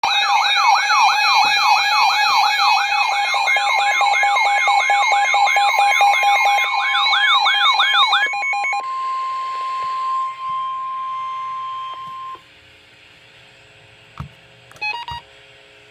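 Emergency alert tones for a tornado warning. An electronic alarm warbles for about eight seconds, a rising sweep repeating two or three times a second over a steady tone. Then a single steady tone holds for about four seconds, and after it comes a faint hum with a few short blips.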